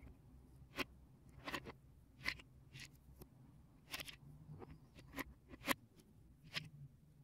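Lego Technic plastic parts clicking and knocking as they are handled, about eight sharp irregular clicks, the loudest near the end, over a faint low hum.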